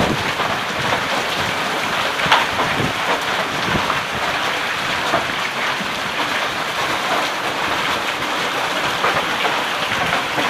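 Heavy downpour with hail: a steady dense hiss of rain, with single hailstones striking now and then as sharp hits. The loudest hit comes about two seconds in.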